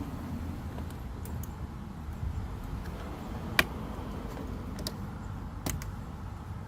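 Plastic dashboard trim panel clicking as its snap clips are pried loose: a few sharp clicks, the loudest about three and a half seconds in, over a steady low hum.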